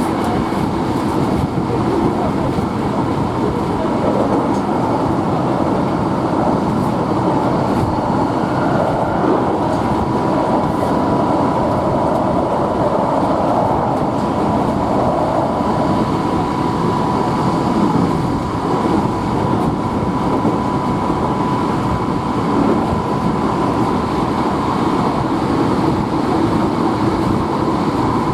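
Hankyu Kyoto Line electric train running steadily along the track: a continuous rumble of wheels on rails with a steady high whine over it.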